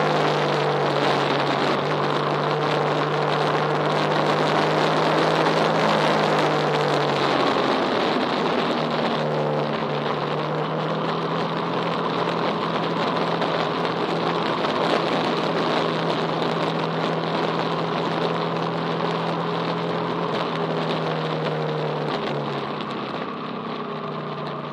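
A vehicle engine running at a steady pitch under a constant rushing noise. The engine note breaks off about eight seconds in and picks up again a moment later.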